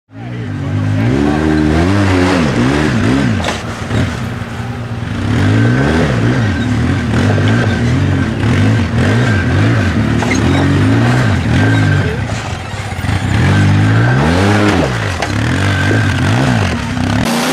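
Polaris RZR side-by-side's engine revving up and dropping back over and over as it crawls over rocks, the pitch rising and falling every second or two.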